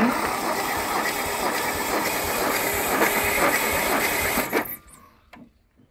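Starter motor cranking a Land Rover 2.25 litre four-cylinder petrol engine, which does not fire because its ignition is disabled, with an even pulse from the compression strokes. A compression gauge is fitted to cylinder two for a compression test. The cranking stops suddenly about four and a half seconds in.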